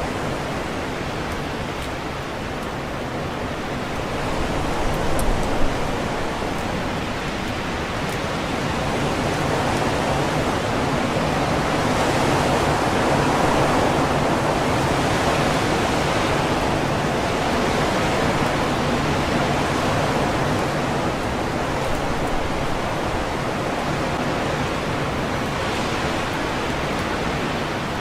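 Strong wind rushing through leafy trees, the leaves rustling steadily. The wind comes in gusts, building to its strongest about halfway through and then easing a little, with a few brief low bumps about five seconds in.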